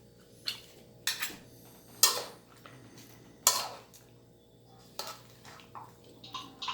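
Metal cooking utensil clanking against a pot as food is stirred and moved: a series of separate sharp clinks with short ringing tails, the two loudest about two and three and a half seconds in, and a quick cluster near the end.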